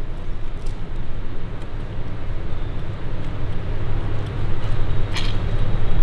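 Steady low hum and rumble of background noise, with a faint click about five seconds in.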